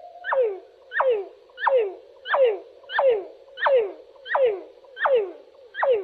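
Recording of a northern cardinal's song played back slowed down, so its notes come out low and drawn out: a run of about nine evenly spaced notes, each sliding steeply down in pitch, a little under one and a half a second.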